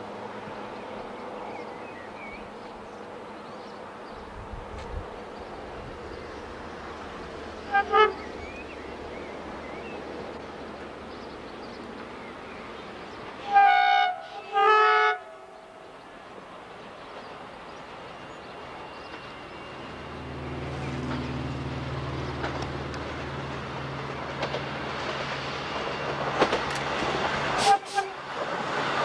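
Diesel locomotive of a passenger train sounding its horn: one short toot about 8 seconds in, then two longer, louder blasts about halfway through. The engine's low rumble then grows as the train approaches and passes, with wheel clicks over the rail joints near the end.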